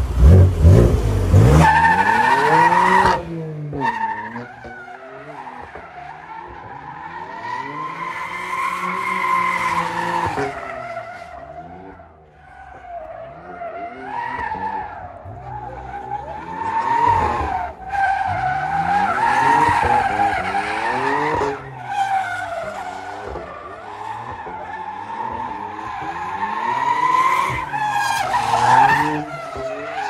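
A drift car's engine revving up and down again and again while its tyres squeal as it slides. It is loudest in the first couple of seconds and eases off briefly partway through.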